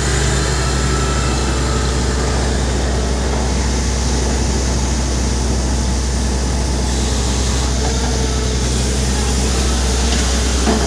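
Borewell drilling rig running steadily: a loud, even heavy-engine drone under a constant rushing noise.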